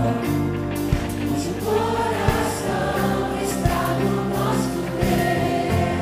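Live gospel worship music: a choir singing over sustained low chords, with a drum hit about every second and a half.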